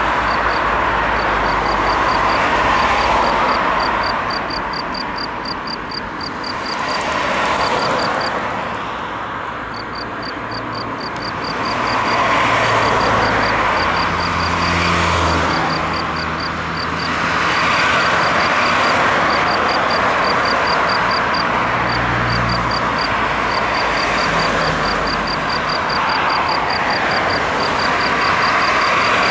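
Male field cricket (Gryllus campestris) calling: an even run of short, high chirps, about four a second, with one brief pause about eight seconds in. Under it is a louder steady rushing noise that swells and fades, with a low drone near the middle.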